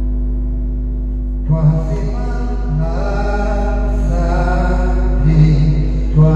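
Church choir or congregation singing a gospel hymn. Voices come in about a second and a half in over sustained accompanying notes, with a steady electrical hum underneath.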